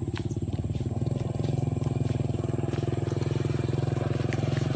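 Small motorcycle engine running steadily under way, its pitch rising a little about a second in and then holding.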